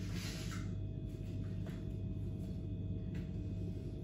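A raw whole chicken being cut apart by hand with a knife, a leg coming off at the joint: a few faint soft clicks and handling noises over a steady low room hum.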